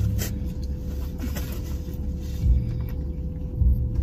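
Low steady rumble in a parked car's cabin, swelling twice near the end, under a faint constant hum, with a few light clicks of a plastic fork as someone eats.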